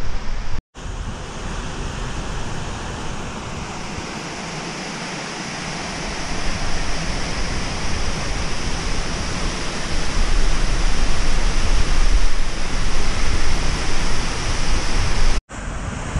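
Qualba waterfall rushing steadily, growing louder from about six seconds in, with a deep low rumble. The sound drops out for an instant twice, near the start and near the end.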